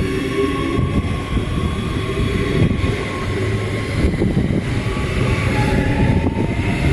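4000 class electric multiple unit moving past close along the platform: a steady rumble of wheels on rail with a steady electric motor whine.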